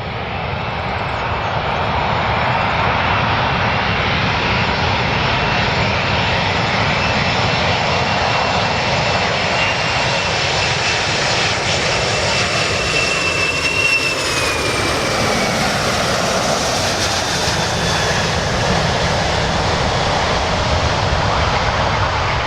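A large airplane's engines running loudly: a steady, dense rushing noise with a thin high whine that slides slightly down in pitch about halfway through.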